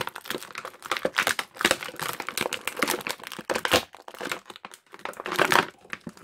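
Clear plastic blister tray crackling and crinkling in irregular clicks as fingers pry a large, stuck toy piece out of its moulded slot.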